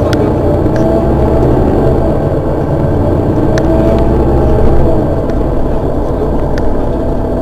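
Mercedes-Benz Citaro city bus's rear-mounted engine idling while the bus stands still: a steady low drone with a faint wavering whine above it.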